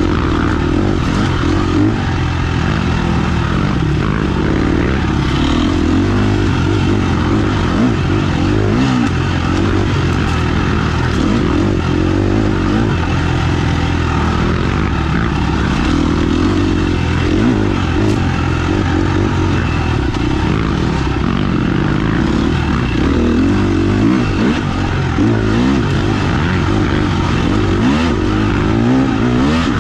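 Off-road motorcycle engine running under way, its pitch rising and falling again and again as the throttle is opened and closed.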